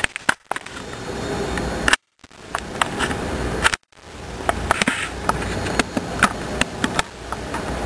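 Handheld camera handling noise: a steady rustling hiss with scattered small clicks. The sound cuts out completely for a moment about two seconds in and again near four seconds.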